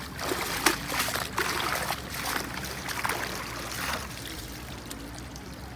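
Water splashing and pouring off a mesh net as it is hauled up out of the water, busiest for the first four seconds and then settling to a trickle.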